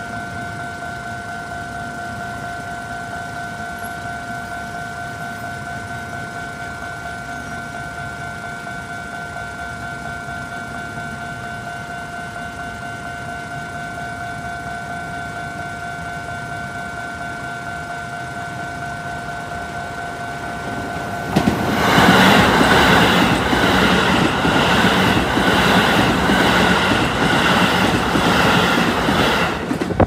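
Japanese level-crossing warning bell ringing steadily. About twenty seconds in, an electric commuter train runs over the crossing for about eight seconds, loud, with the rhythmic clatter of its wheels over the rail joints.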